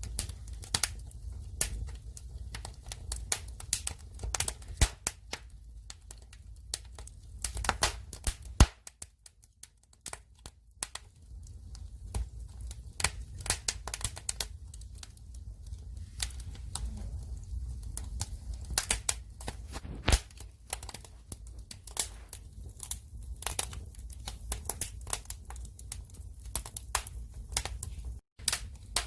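Firewood fire burning, with irregular sharp crackles and pops over a low steady rumble. The crackling falls almost silent for about two seconds near the nine-second mark, then resumes.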